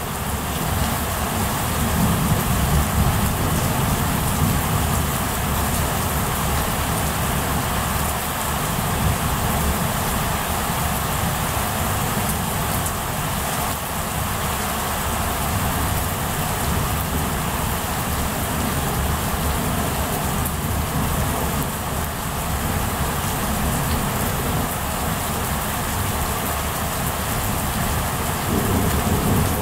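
Heavy rain falling steadily in a thunderstorm, with low thunder rumbling underneath, heaviest a couple of seconds in and again near the end. The camera microphone is overloaded and clipping.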